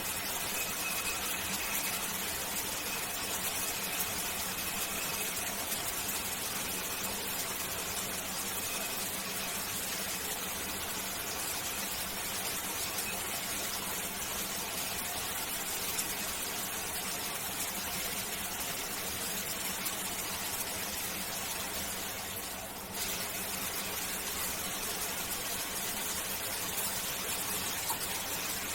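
Shower water running steadily, an even hiss of spray, with a short dip in level about two-thirds of the way through before it comes back abruptly.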